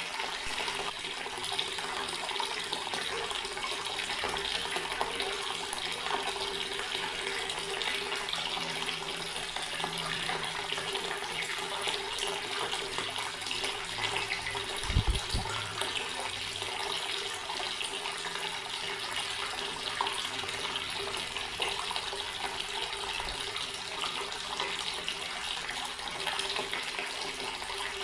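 Water running steadily from an open garden tap, an even splashing rush. There is one brief low thump about halfway through.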